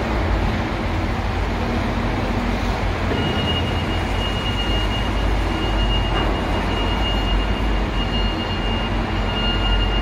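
Steady low rumble and noise of machinery, with a thin high whine joining about three seconds in.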